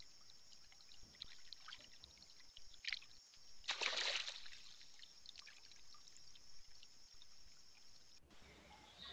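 Faint trail-camera audio of a fishing cat at the water's edge: a steady high-pitched hiss with scattered small clicks, and a short splashing rustle about four seconds in as the cat moves its head at the wet bank. The hiss cuts off near the end.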